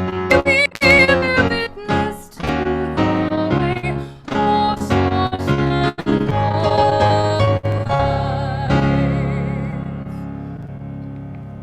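Piano music with a sung melody, the voice wavering in vibrato. It closes on a held chord that slowly dies away over the last few seconds.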